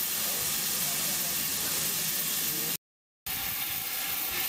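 Steam hissing steadily from standing 0-6-0 pannier tank steam locomotives. The hiss breaks off in a short total silence just before three seconds in, then resumes.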